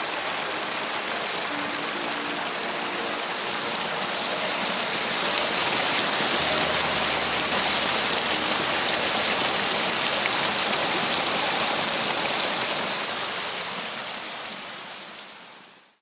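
Rushing water of a rocky mountain stream spilling over small cascades: a steady hiss that grows a little louder partway through, then fades out near the end.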